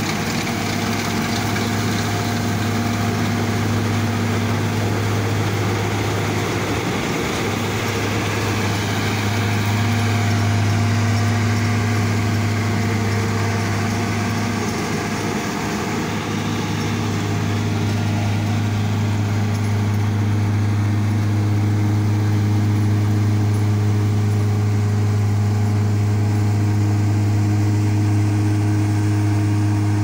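Laverda 3890 combine harvester running under load as it cuts standing wheat. Its engine and threshing machinery make a steady low hum over a constant whirring noise.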